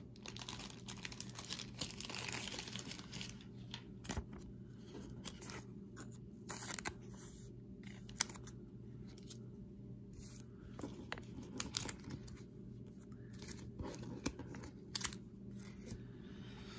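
Soft plastic card sleeve crinkling and rustling as a baseball card is slid into it and handled, with small scattered clicks and taps.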